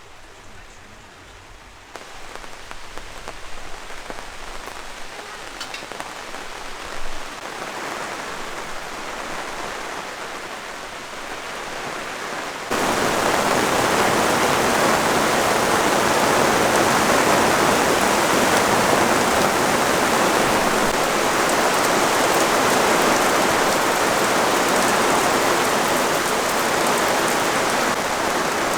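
Heavy rain pattering down, building steadily and then jumping suddenly to a louder downpour about halfway in.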